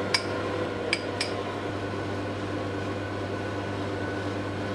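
Three light clinks in the first second and a half as small ramekins are handled and set down on a cutting board, over a steady low hum.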